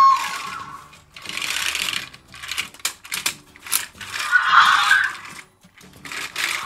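Electronic sound effects from the Hasbro Allspark Tech Optimus Prime toy's small speaker, set off by moving the toy: several short bursts of mechanical whirring and a run of clicks.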